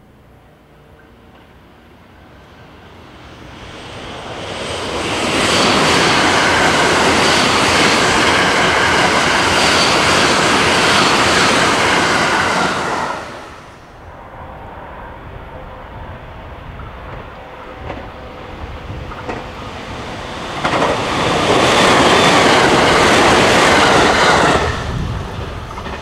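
A limited-express electric train passes at speed, building up, then loud for about seven seconds with its wheels clacking steadily over the rail joints before falling away. Near the end a second train passes, loud for about four seconds.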